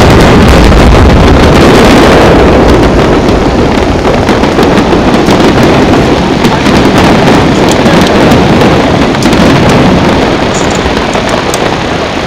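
Aerial firework shells bursting in a rapid barrage, the bangs so close together that they merge into a continuous rumble with crackle. It is loudest in the first couple of seconds and eases only slightly after.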